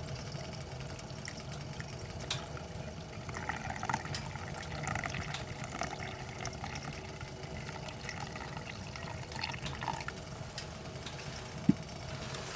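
Water being poured or handled, an irregular trickling and splashing with small knocks mixed in, over a steady low background hum, and one sharp click near the end.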